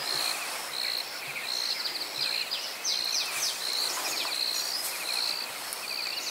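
Outdoor dusk ambience of small creatures chirping: short high chirps repeating about once a second, buzzy trills and a few falling chirps, over a steady hiss.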